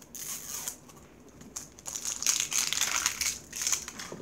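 Plastic wrapping of a toy packet crinkling as it is handled and pulled open by hand, in a short spell at the start and a longer spell from about a second and a half in.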